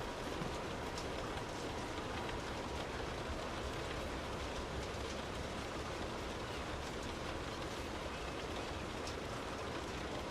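Steady rain heard from indoors, an even hiss with scattered drops ticking on a surface.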